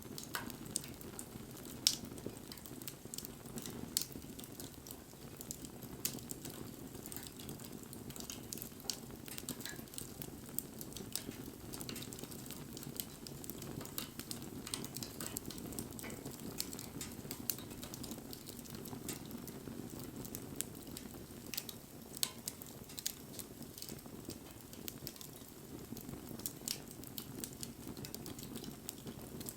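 Wood bonfire burning, with a steady low rush of flame and frequent irregular crackles and sharp pops from the burning wood.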